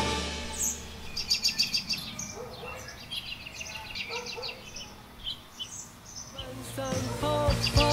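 Small birds chirping and singing in quick runs of high repeated notes, thinning to scattered chirps; music fades back in near the end.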